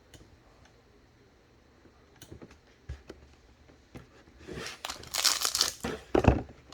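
Foil trading-card pack wrapper crinkling and tearing open in a few bursts from about halfway in, after a few light clicks.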